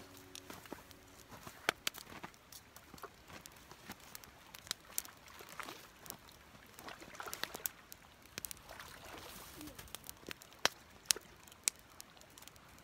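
Scattered faint clicks and ticks at irregular intervals, with a few sharper ones near the end.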